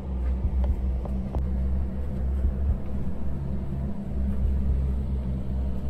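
A steady low rumble, with a few faint knocks in the first second and a half.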